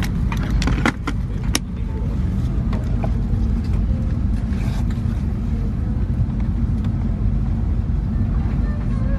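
Steady low rumble of an Airbus A330-300's economy cabin, with a few sharp clicks of handling in the first two seconds.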